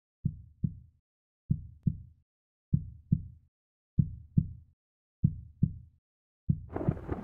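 Heartbeat sound effect: slow double thumps (lub-dub), one beat about every 1.2 seconds. Near the end a rumbling noise starts to swell in.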